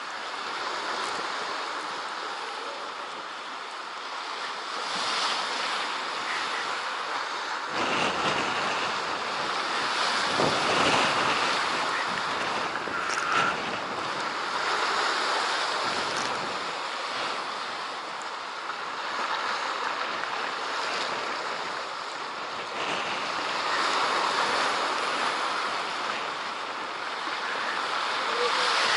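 Sea surf breaking and washing over rocks, a steady hiss that swells and eases with the waves. Wind rumbles on the microphone at times, most of all a little under halfway through.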